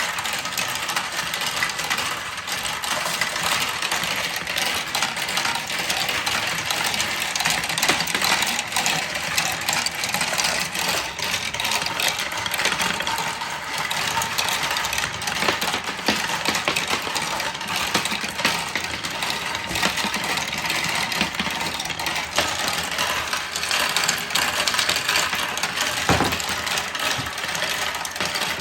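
Many marbles rolling and clattering down wooden marble-run slopes, a dense, continuous rattle of small clicks.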